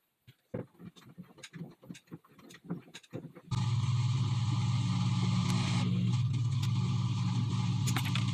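A few light clicks and knocks, then about three and a half seconds in a steady engine sound begins abruptly: the Lexus ES300's V6 running evenly after its ECU capacitors were replaced.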